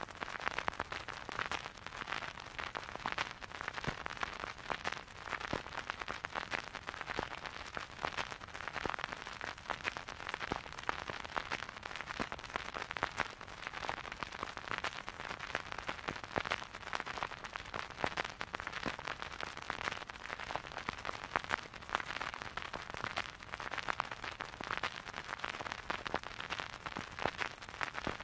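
Vinyl record surface noise under a turntable stylus: a steady hiss peppered with dense, irregular crackles and pops, with no music playing.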